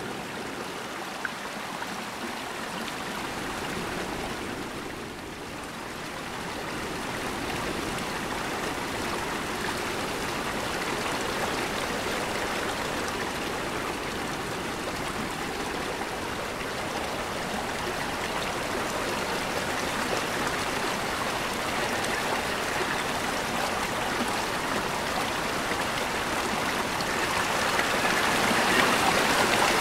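Steady rushing of flowing water, growing louder near the end.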